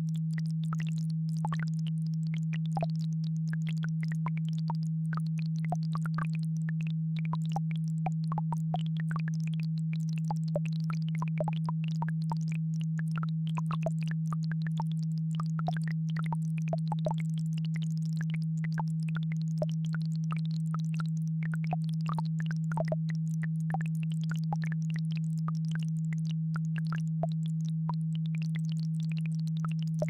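A steady, low electronic tone of an isochronic-tone entrainment track, one unbroken pitch. Beneath it, much quieter, is the faint trickling of a babbling brook.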